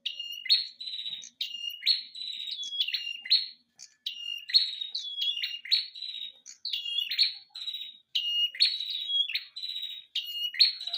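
Songbird singing the same short phrase over and over, about once a second: a held whistled note followed by a buzzy, falling trill.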